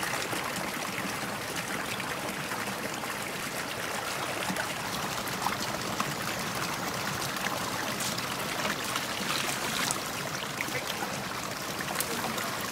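A small stream running steadily, water spilling out of a stone culvert into a shallow pool, with a few faint knocks.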